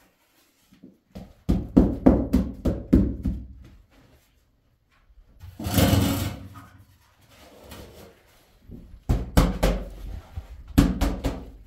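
A long wooden stick striking a large flour-dusted cloth spread on the floor: a quick run of sharp knocks, a rushing rustle about halfway through as the cloth is shaken, then another run of knocks near the end.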